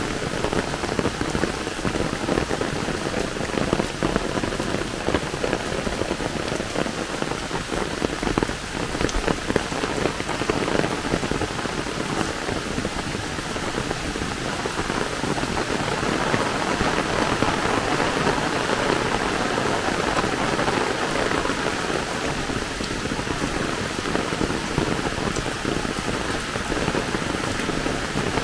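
Heavy rain pouring down steadily, a dense, even patter of drops on leaves and a wet dirt path.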